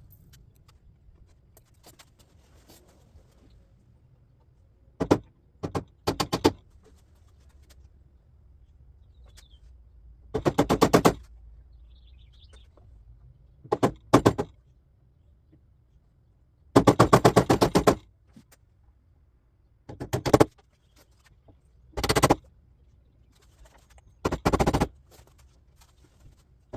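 A power tool rattles in about ten short bursts, from a fraction of a second to just over a second each, with pauses between them. It sounds like an impact driver's hammering as screws are driven.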